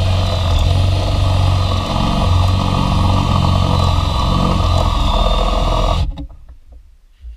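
Cordless drill running steadily under load as its bit bores into a plastic panel, then stopping abruptly about six seconds in.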